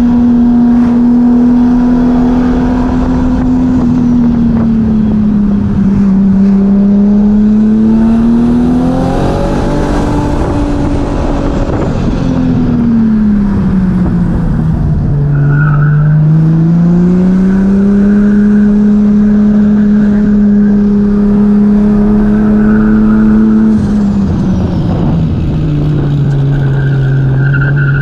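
Swapped Toyota 2JZ-GTE turbocharged inline-six in a Nissan Cefiro, driven hard through mountain bends. The revs climb and drop several times, with a sudden drop about 24 seconds in.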